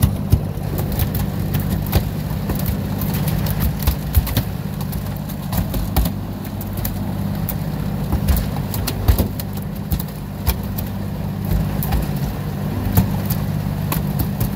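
A boat's engine running steadily under way, with irregular sharp knocks and clicks over it.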